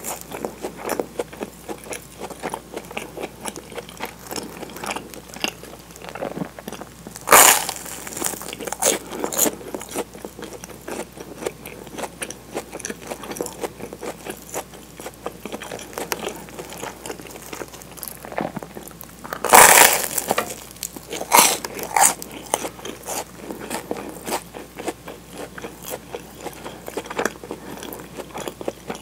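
Close-miked chewing of crisp toasted sandwich bread: a steady run of small crunches, with two loud crunching bites about seven seconds in and again around twenty seconds in.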